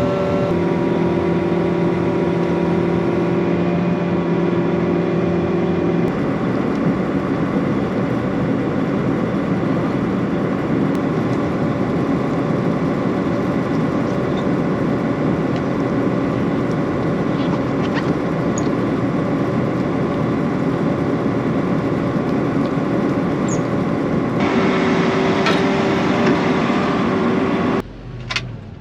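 Round-module cotton picker's diesel engine and fans running under load as the machine is driven. A steady hum for the first six seconds gives way to a broader rushing noise, and the sound drops away sharply near the end.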